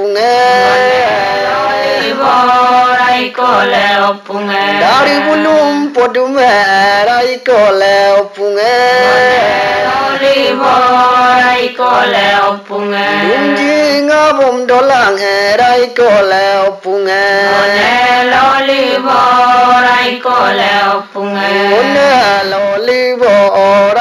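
A traditional Adi ponung chant, sung in long held phrases that slide between pitches with short breaks between lines, over a steady low hum.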